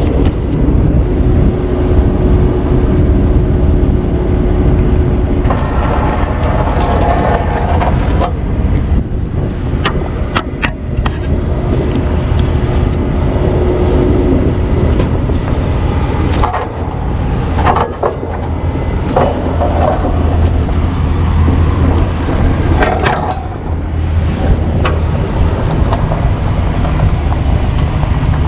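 Heavy-duty tow truck's diesel engine running steadily, with several sharp knocks from the rigging work.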